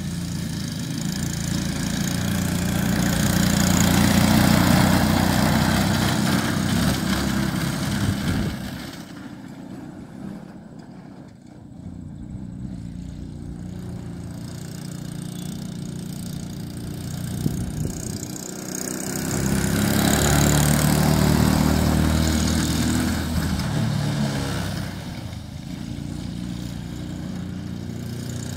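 Small 125cc engine of a mini Jeep-style kids' vehicle running as it is driven around. It swells twice as the vehicle passes close, a few seconds in and again about twenty seconds in, and fades in between.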